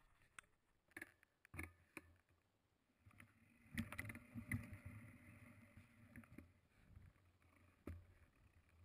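Faint rattles, clicks and knocks of a mountain bike rolling over a dirt trail, with a louder, rougher stretch about four seconds in.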